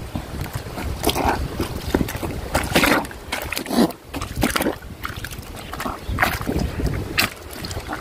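Hand plunger washer on a wooden pole pushed up and down through soapy water and clothes in a plastic tub, the water sloshing with each stroke in an uneven rhythm of about one to two strokes a second.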